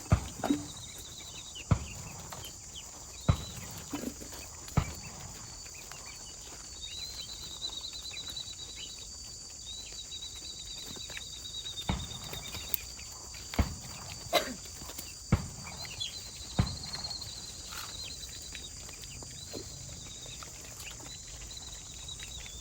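Sharp knocks at uneven gaps of about one to two seconds, over a steady high chirring.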